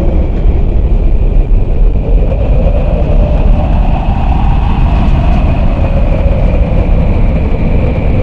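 Ghostly horror sound effect: a loud, steady low rumble with a slowly wavering mid-pitched tone and a thin high tone held above it.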